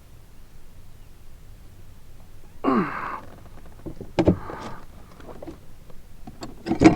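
A man's short grunting exhale about three seconds in, then sharp knocks and rattles of gear being handled in a kayak, loudest in a quick cluster near the end.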